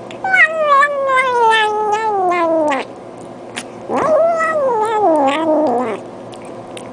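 A cat giving two long, drawn-out meows. The first slides steadily down in pitch for more than two seconds; the second starts about a second later, rises briefly, then falls.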